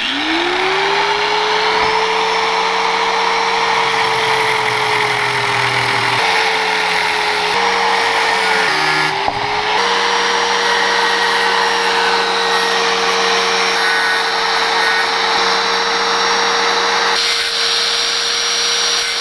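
Angle grinder spinning up with a rising whine, then running at full speed while steel wire is ground to a point against its disc, with a steady grinding hiss. The motor's pitch sags a few times partway through as the wire is pressed into the disc under load.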